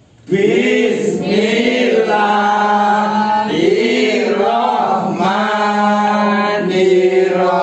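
A group of voices chanting in unison in long, drawn-out notes, starting suddenly about a third of a second in.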